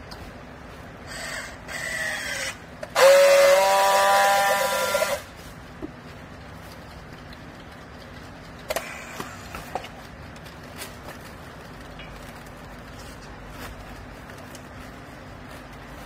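Handheld battery strapping tool working on a plastic strap: its motor runs for a second or so as it tensions the strap, then gives a louder steady whine for about two seconds as it seals the strap. A few sharp clicks follow.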